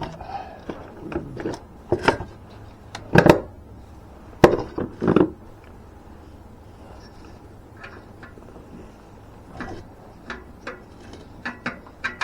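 Irregular knocking, clattering and scraping of hand tools and parts being handled while working under a car, heaviest in a cluster of knocks a few seconds in, then lighter clicks toward the end.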